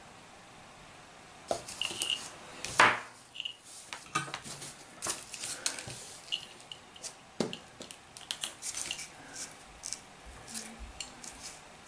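Small metal parts and tools clinking and tapping on a wooden board as a coiled battery spring contact is handled and positioned for soldering. A string of sharp clicks and knocks begins about a second and a half in, the loudest a knock just before three seconds.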